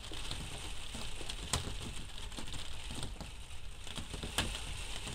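Rain falling in a steady patter, with many small drop ticks and two louder taps about a second and a half in and near the end.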